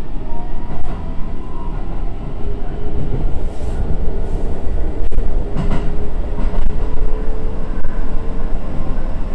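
Hokuso Railway 7500-series electric train running along the line, heard from just behind the cab: a heavy, steady rumble of wheels on rail with a faint steady whine, and a few sharp clicks.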